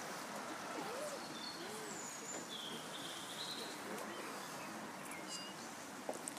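Quiet outdoor background hiss with a few short, high bird chirps and whistles scattered through it.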